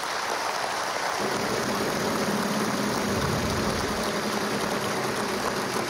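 Wheel of Fortune prize wheel spinning, its pegs clicking rapidly past the pointer flippers into a steady rattle, under studio audience applause.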